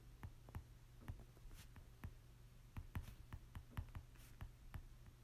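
Faint, irregular taps and clicks of a stylus on a tablet screen during handwriting, over a low steady hum.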